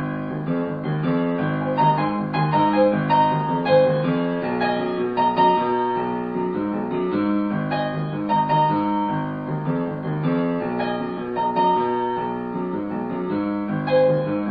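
Background piano music, a continuous run of melody notes.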